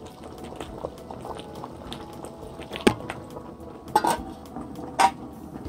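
Water bubbling at a rolling boil in a pot of banana-leaf-wrapped cassava suman, a steady crackle of small pops. In the second half the metal pot lid clanks three times, about a second apart, with a brief ring, as it is set back on the pot.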